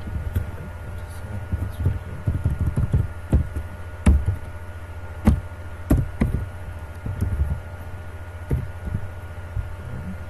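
Computer keyboard keys being typed in irregular taps and knocks, a few sharper than the rest, over a steady electrical hum.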